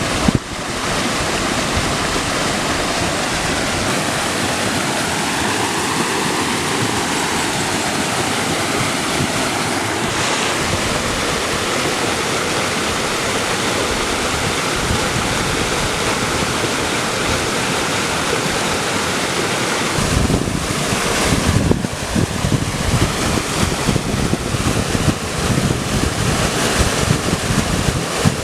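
Steady rush of running water. From about twenty seconds in, gusts of wind buffet the microphone.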